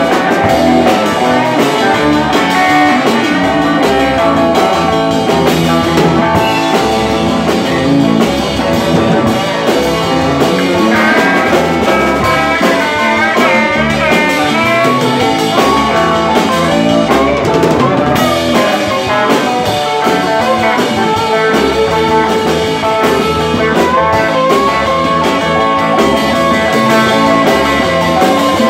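Live rock-and-roll band playing an instrumental break on electric guitars and drum kit, with no singing. A lead guitar plays bent notes in the middle and long held notes near the end.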